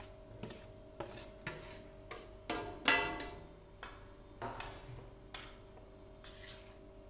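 Steel spatula knocking and scraping against a steel mixing bowl while roasted wheat flour is stirred into melted jaggery: a string of irregular clanks, the loudest about three seconds in ringing briefly.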